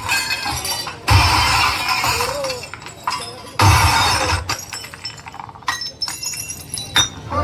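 Car audio system played in short loud bursts for a sound-pressure measurement. There are two blasts, one about a second in and one about three and a half seconds in, each with deep bass under a harsh, hissing roar, and quieter background noise between them.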